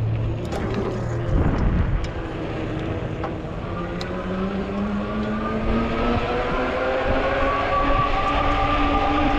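Ecotric folding fat-tire e-bike's electric motor whining as the bike picks up speed, the whine climbing slowly in pitch over the last several seconds, over rumbling tyre and wind noise.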